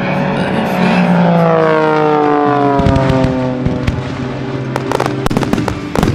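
A radio-controlled aerobatic plane's engine passes by, its pitch falling steadily as it flies past. From about five seconds in come a series of sharp firework bangs and cracks.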